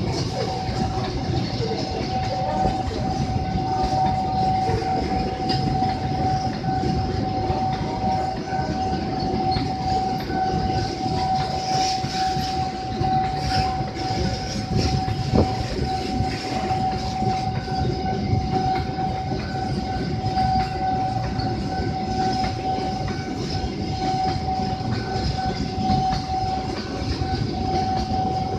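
Container freight train's loaded flat wagons rolling past close by: a continuous rumble with clickety-clack of wheels over rail joints. A steady high tone holds under it throughout.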